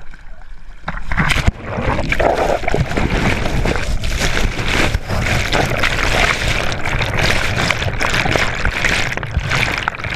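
Sea water churning and splashing against a GoPro as it is tumbled under a breaking wave: a loud, dense rush with a low rumble and many small cracks and pops, jumping up about a second in.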